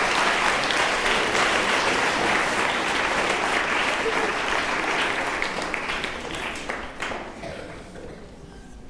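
Audience applauding: many hands clapping together, tailing off and fading out near the end.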